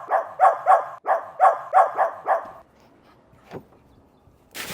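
Small dog barking in a rapid run of short, sharp barks, several a second, stopping a little over halfway through. A single sharp knock follows near the end.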